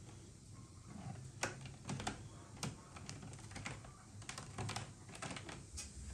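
Fine metal wire mesh being pressed and folded by hand around a whole fish on a wooden board: light, irregular clicks and crinkling ticks of the wire, a dozen or so, unevenly spaced.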